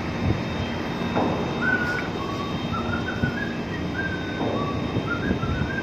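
A person whistling a tune, a string of short held notes stepping up and down, starting about a second and a half in, over a steady rush of wind and a low machinery hum.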